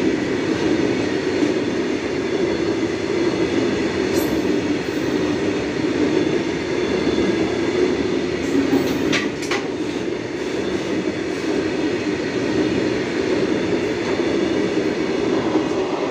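Indian Railways goods train rolling past in a steady, continuous rumble. A few brief sharp sounds cut through it about four seconds and nine seconds in.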